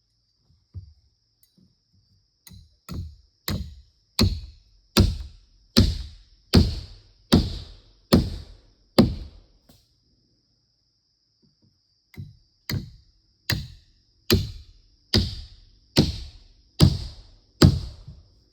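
Repeated heavy blows on wood, struck at a steady pace of a little over one a second in two runs of about ten and eight strikes, with a pause of a couple of seconds between them. A steady high insect drone, likely crickets, runs underneath.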